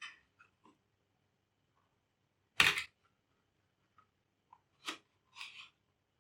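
Scattered small clicks and knocks from laptop parts and tools being handled, with a louder sharp knock about two and a half seconds in, another near five seconds, and a short scrape after it.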